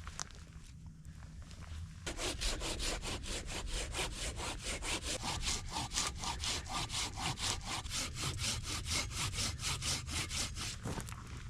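Hand saw cutting through firewood with quick, even back-and-forth strokes, starting about two seconds in and stopping near the end.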